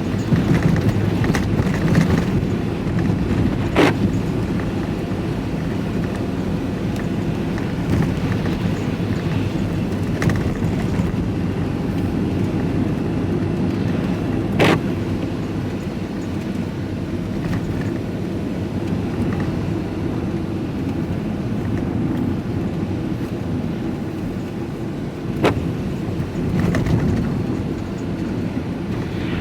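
Steady engine and road noise heard from inside a vehicle's cab while it is driven along, with three short sharp knocks spaced roughly ten seconds apart.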